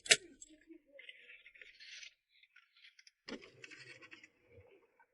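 Faint scratching and rustling of hands working wires and a fuse tap in a fuse box, with a sharper handling noise about three seconds in.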